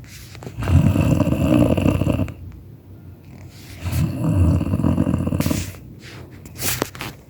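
Loud pig-like snoring: two long snores, each about a second and a half, about three seconds apart.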